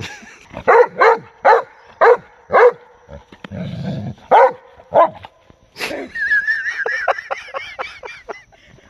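Doberman Pinscher barking at soap bubbles, about seven short, sharp barks in the first five seconds. About six seconds in it gives a long, high, wavering whine that breaks into short yips.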